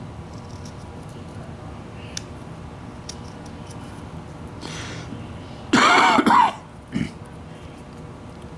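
A man clears his throat with a short, loud cough about six seconds in, with a smaller one just after; otherwise only faint low background with a few small ticks.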